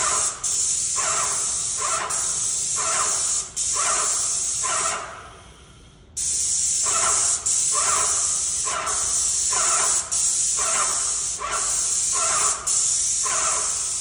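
Paint spray gun on an extension pole hissing as it sprays black dry-fall paint onto sheet-metal ductwork, with an even pulse about every two-thirds of a second. The spray cuts off a little under five seconds in and starts again about a second later.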